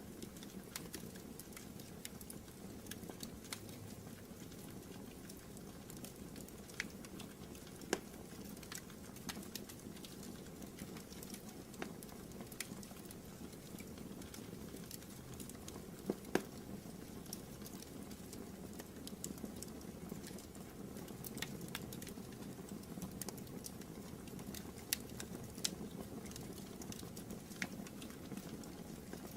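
Wood fire burning in a fireplace: a steady low rumble with scattered crackles and pops, a few of them sharper and louder.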